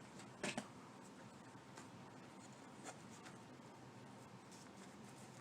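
Quiet handling of craft materials while hot glue is applied: a sharp click about half a second in, then a few faint ticks and light scraping.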